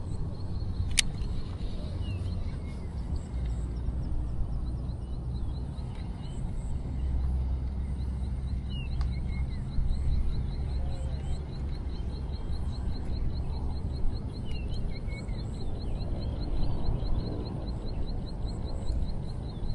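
Strong wind buffeting the microphone with a steady low rumble, while birds give short chirps and a fast, even ticking runs through most of it. A single sharp click comes about a second in.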